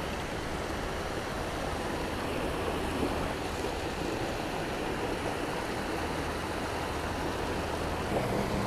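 Water pouring steadily over a low spillway weir and churning in the pool below.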